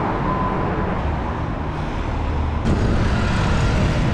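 Double-decker bus running with road noise, a steady low engine hum. The sound turns brighter and hissier about two and a half seconds in.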